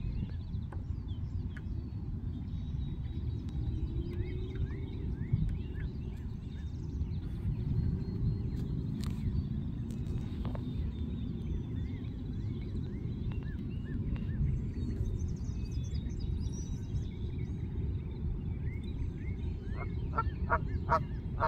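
Canada geese with goslings: scattered short, high peeps throughout, then a quick run of loud honks from an adult Canada goose near the end, over a steady low rumble.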